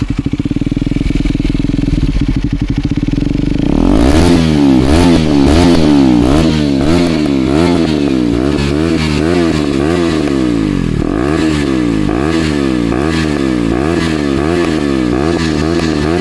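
KTM Duke 250's single-cylinder engine running through an SC Project aftermarket exhaust: idling steadily, then from about four seconds in revved again and again in quick throttle blips, the pitch rising and falling with each one.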